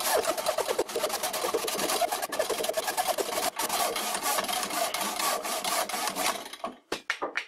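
Manual miter saw cutting through a green oak mallet head, steady back-and-forth rasping strokes of the blade in the wood. The sawing stops about six and a half seconds in as the cut finishes, followed by a few short knocks.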